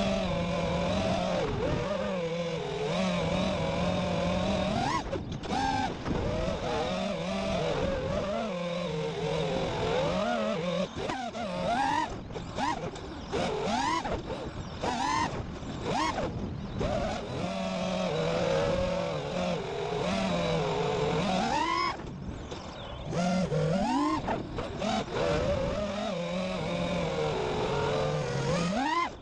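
FPV racing quadcopter's brushless motors and propellers whining, the pitch sweeping up and down again and again as the throttle is punched and let off. The sound is picked up by the drone's own onboard camera and drops briefly about three-quarters of the way through.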